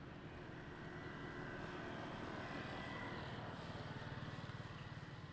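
A low motor drone that grows louder through the middle and eases again near the end.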